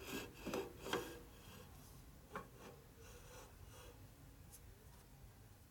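A precision machinist's level being handled and set down on a lathe's bed ways: a few soft scrapes and taps of metal on metal in the first second or so, and one more short tap about two and a half seconds in.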